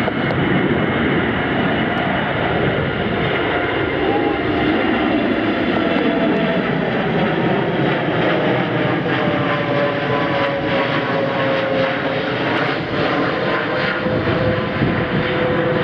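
Boeing 787-8 Dreamliner's twin jet engines at departure thrust: a loud, steady rushing rumble with a whining tone that slowly falls in pitch.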